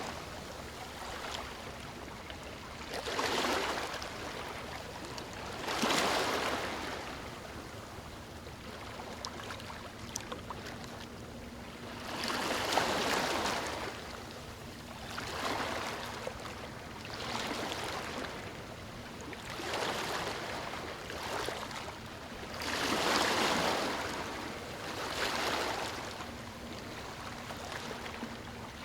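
Ocean surf breaking and washing up a beach: a surge of rushing water every two to three seconds, about nine in all, with a softer hiss between them.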